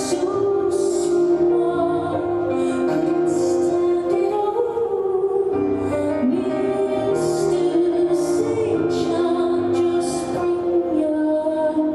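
A woman singing a slow, tender song live, holding long notes over instrumental accompaniment.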